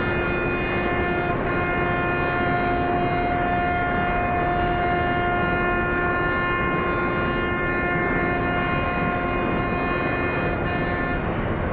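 Ship's horn sounding one long, unbroken blast over a rushing background noise. The blast stops near the end.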